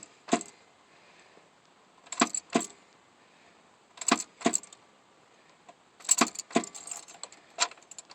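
Sharp metallic clicks with a jingle like keys: one near the start, then pairs about half a second apart, and a busier cluster near the end.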